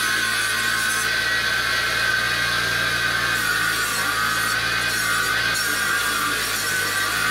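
Bench grinder running steadily with a wire wheel brushing a steel lawnmower blade, a steady whine over a low hum, as the wire wheel scrubs caked grass crust and rust off the blade before sharpening and balancing.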